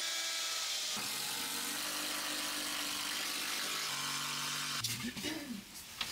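Cordless drill running steadily as it works into wooden wall cladding, its motor pitch shifting twice. It stops just before the end, and quieter irregular sounds follow.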